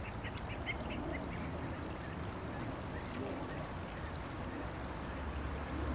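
Ducklings calling in a quick run of short, high peeps during the first second or so, over the steady hiss of a lawn sprinkler spraying water.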